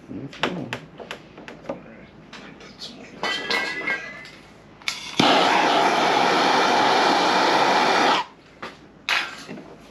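A heat gun blowing steadily for about three seconds near the middle, starting and stopping abruptly, warming the dented hood panel to soften the metal for paintless dent repair. Before it come scattered light clicks and taps.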